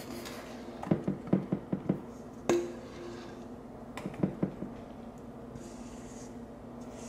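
Spatula and mixing bowl knocking and scraping as thick brownie batter is scraped into a glass baking dish: a quick run of taps about a second in, a sharper knock a little later, and a few more taps around four seconds, over a steady low hum.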